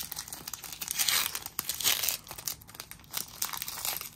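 Foil wrapper of a Marvel Flair trading card pack crinkling and tearing as it is ripped open by hand and peeled off the cards, a dense crackle that is loudest about one to two seconds in.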